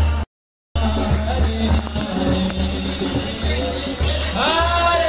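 Devotional kirtan-style music with jingling metal percussion over a low, steady drum. It breaks off in a half-second gap of silence just after the start, and a singing voice comes in near the end.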